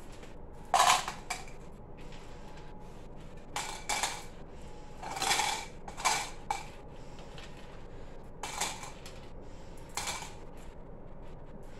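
Small hard coloured pieces clattering into clear plastic cups as they are sorted by colour, in about six short scattered bursts.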